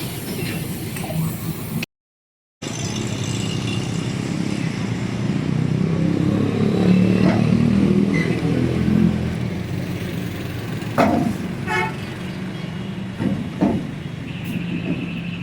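A motor vehicle's engine running, swelling louder around the middle. Near the end a brief steady horn tone sounds, and a few sharp knocks and a rattle come a little before it.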